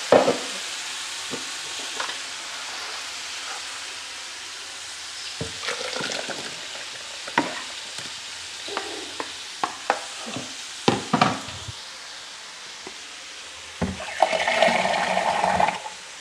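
Blended chilli and shallot paste sizzling in hot oil in an aluminium wok, with a steady hiss. A metal spatula scrapes and knocks against the pan several times, and it gets louder for a moment near the end.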